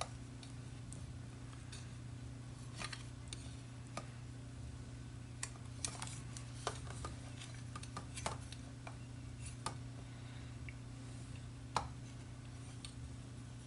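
Irregular light metallic clicks and taps of small metal parts being handled and fitted, a washer and nut going onto the threaded rod of a soldering iron stand, over a steady low hum.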